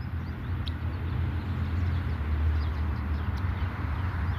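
Steady low engine hum, like a vehicle idling, with faint short high chirps of birds calling at intervals.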